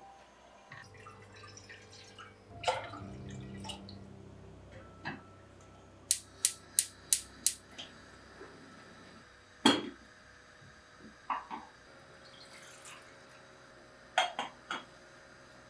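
Kitchen items being handled: scattered knocks and clinks, with a quick run of five sharp clicks about halfway through.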